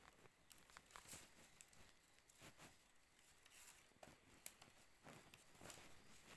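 Faint rustling and light clicking of thin woven plant strips being worked through a hand-woven pot trivet, with one sharper click about four and a half seconds in.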